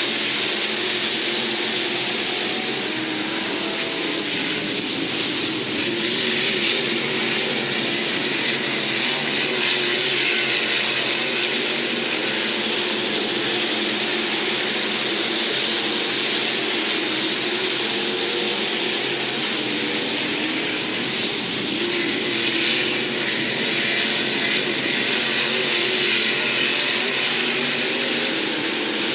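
A field of IMCA SportMod race cars running at speed on a dirt oval, their engines producing a steady, unbroken racket with no letup.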